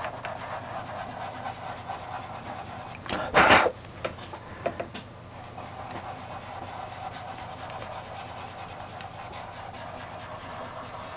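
Fingers rubbing soft pastel into pastel paper, a steady soft scrubbing as the colour is blended. About three seconds in there is one short, loud rush of noise.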